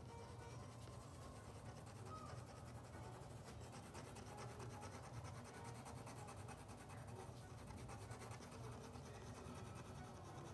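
Faint scratching of a drawing or painting tool working across paper, over a low steady hum.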